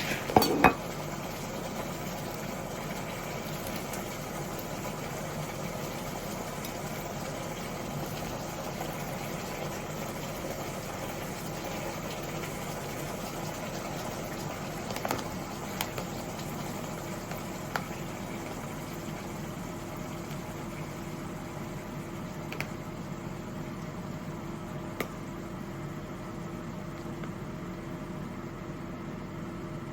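A steady machine hum with a few light clicks and knocks of kitchenware. The loudest is a quick cluster of knocks right at the start, and single clicks follow now and then.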